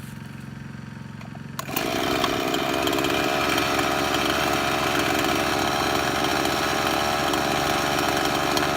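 Husqvarna 350 two-stroke chainsaw running. A quieter steady engine hum for about the first second and a half jumps suddenly to a loud, steady run. The saw's idle is set too high, high enough to keep the chain turning without the trigger pulled.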